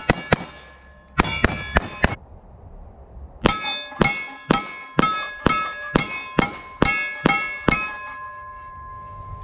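Pistol shots striking a steel plate target, each hit a sharp clang that rings. A quick cluster of hits comes first, then a short string of about five, then a steady string of about ten at roughly two a second. The plate rings on for a moment after the last hit.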